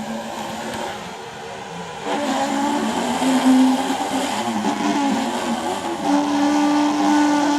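Rubber rubbed under pressure, giving a run of squeaky, wavering tones that shift in pitch, settling into one long, steady squeal from about six seconds in.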